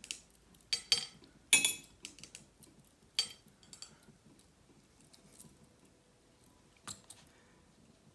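A few light clicks and clinks, most in the first two seconds and one more near the end, as a watercolour brush is tapped and worked against a paint palette while a colour is mixed for the background wash.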